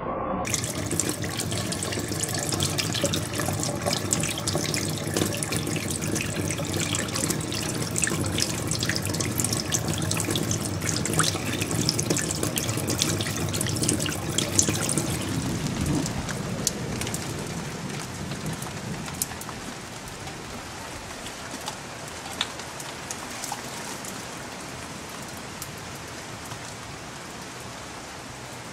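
Water gushing and splashing into a basin, loud and crackling for about the first fifteen seconds, then easing to a softer, steadier run with scattered drips.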